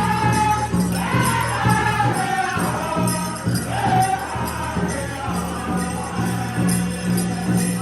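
Powwow drum group singing together in long phrases that step down in pitch, over a steady, even beat on a big drum, with metallic jingling throughout.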